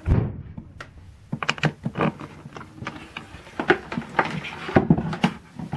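Plastic toolbox case and its plug-in leads being handled: a heavy thump at the start, then an irregular run of knocks and clicks.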